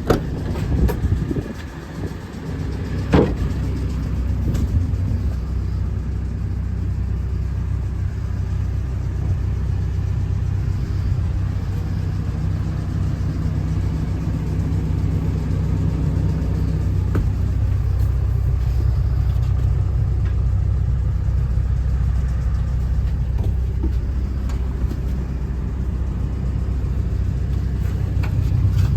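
JCB JS130 tracked excavator's diesel engine running steadily at low speed, with a single sharp knock about three seconds in.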